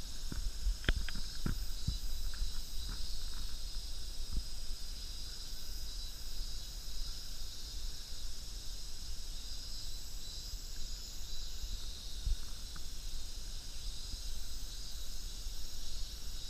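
A steady, high-pitched chorus of insects with a low rumble on the microphone. There are a few short clicks in the first two seconds.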